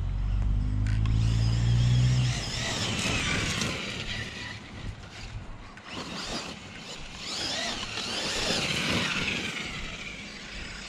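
Electric motor of a Losi RZR Pro R RC side-by-side whining up and down in pitch as it is driven in bursts, over tyre noise. A deeper, steady engine-like hum cuts off about two seconds in.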